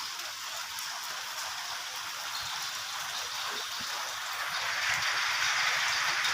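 Steady rain falling, growing louder about two thirds of the way through.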